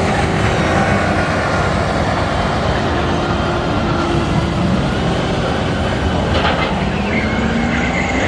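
Vehicle engines running with a steady low rumble, and a faint engine note rising slowly near the end.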